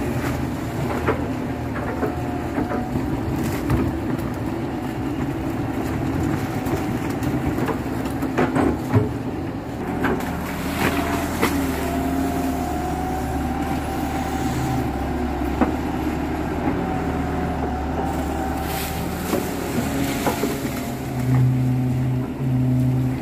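KATO HD512E crawler excavator's diesel engine running steadily as it digs wet mud, with a thin whine that rises and falls and a few short knocks. The engine note grows louder near the end.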